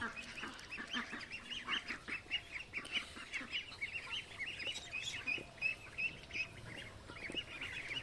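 A flock of month-old Magpie ducklings peeping, many short high calls overlapping without pause.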